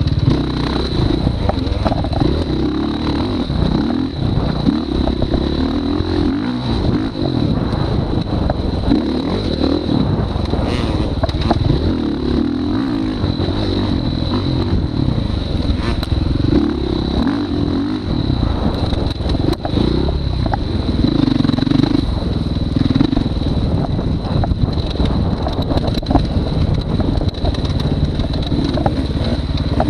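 Dirt bike engine revving up and falling back again and again as it is ridden around a short track, with rattling from the bike, heard from a camera strapped to the rider's chest.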